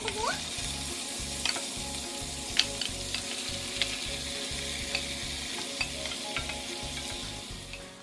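Beef chunks sizzling in a hot cast-iron skillet of garlic and onion fried in butter, as they are tipped in and stirred with a wooden spoon. A steady frying hiss runs throughout, broken by scattered clicks and knocks of the spoon and meat against the pan, and eases a little near the end.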